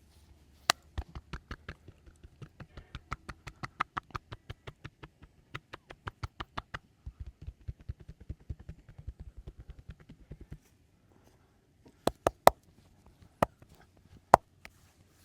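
Rapid percussive hand strikes of a vigorous massage, several a second for about ten seconds. After a short pause come a few louder, sharper single strikes.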